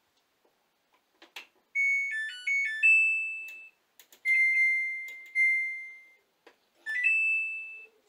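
Samsung Ecobubble WW60J30G03WDUA washing machine powering up: its control-panel beeper plays a short stepping tune of electronic beeps, then gives longer single beeps as the program dial is turned, with a few faint clicks of the button and dial. The tune shows the control module, repaired after a voltage surge, is working again.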